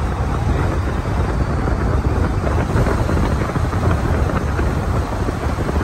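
Steady wind buffeting on the microphone over road noise, recorded from a car driving along the bridge deck.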